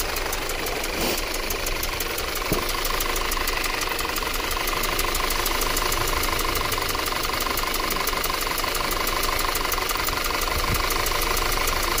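2013 Audi Q5's 2.0-litre turbocharged four-cylinder engine idling with a steady, even pulse. The engine has logged random and cylinder 1 and 3 misfire codes, and cylinder 3 is misfiring.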